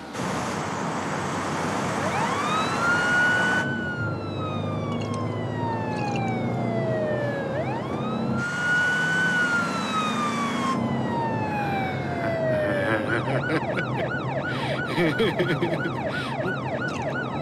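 Police car siren sounding behind a moving car: two slow wails, each rising quickly and then gliding slowly down, switching near the end to a fast warbling yelp, over the steady low rumble of the car.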